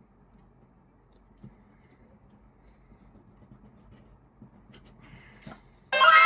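Faint rustling and a few small clicks of the unboxing being handled, then near the end a loud cat meow starts suddenly, falling in pitch.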